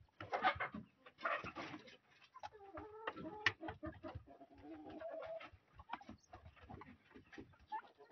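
Domestic turkeys calling softly while feeding: two brief scuffling noises in the first two seconds, then a few wavering calls and one held, steady call about midway.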